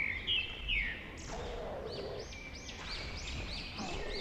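A bird chirping over steady background noise: a few sharp notes near the start, then from about two seconds in an even series of short arched chirps, about three a second.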